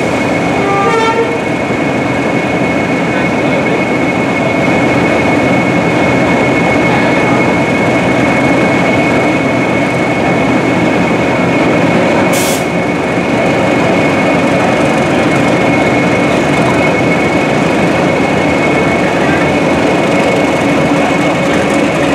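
Class 20 D8098 and Class 31 D5830 diesel locomotives, with English Electric 8SVT and 12SVT engines, working hard as they pull a train away. The engines make a loud, steady thrash with a steady high whistle above it, and there is a brief hiss about twelve seconds in.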